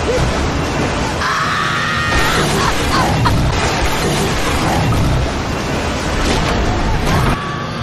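Disaster-film soundtrack of a tornado: loud, dense storm noise with booms and crashes under dramatic music. A shrill sound lasts about a second, starting about a second in.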